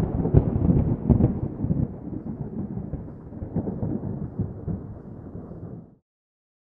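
A low, crackling rumble, loudest at the start and fading over about six seconds before cutting off suddenly.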